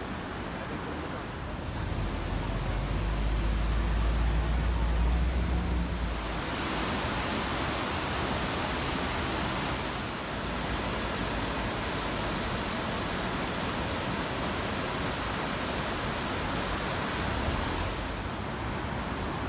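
Steady rushing hiss of water, rain and river over a weir, outdoors in rain. A heavy low rumble joins it from about two to six seconds in.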